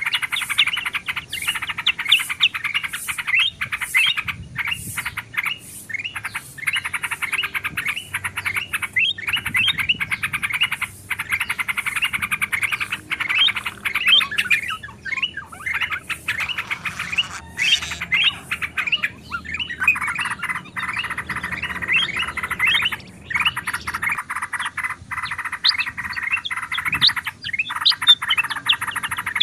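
Dense, overlapping chorus of bulbul calls and chattering song, a bird-lure (pikat) recording that mixes yellow-vented bulbul (trucukan) with kutilang emas and kutilang sutra. Short chirps and warbled phrases come without a break, several birds at once.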